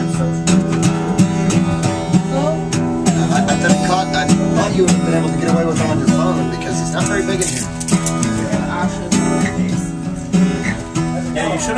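Acoustic guitar being strummed, chords ringing with a regular strumming stroke.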